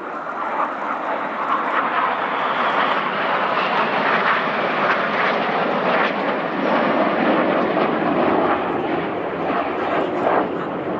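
Jet noise from a formation of nine BAE Hawk T1 jets flying past: a steady rushing sound that swells over the first two seconds or so and stays loud.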